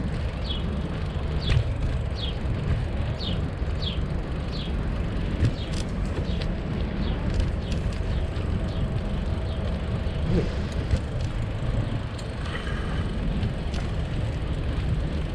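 Steady low rumble of wind on the microphone and tyres rolling on a paved path during a bicycle ride. In the first few seconds there is a string of short, high, falling chirps.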